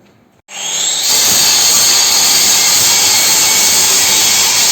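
Concrete-cutting saw cutting through a concrete slab: a loud, steady rush of cutting noise that comes in suddenly about half a second in and holds.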